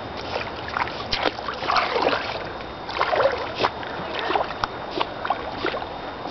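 Shallow lake water sloshing and splashing around legs wading through it, in irregular bursts.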